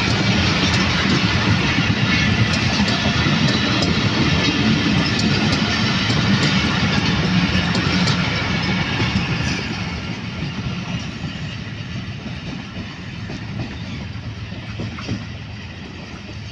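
Passenger train coaches rolling past on the track. The sound fades from about ten seconds in as the last coach moves away.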